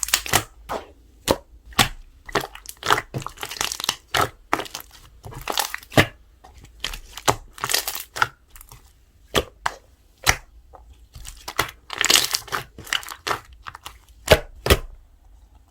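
Slime being squeezed and pressed by hand, with sharp pops and crackles of trapped air at irregular intervals and a denser crackling run about four seconds in and again about twelve seconds in.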